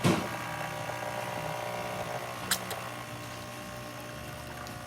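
Saeco Odea Giro Plus super-automatic espresso machine running its pump steadily for the pre-infusion stage of a shot, a steady mechanical hum. A sharp click opens it, with a second, shorter click about two and a half seconds in.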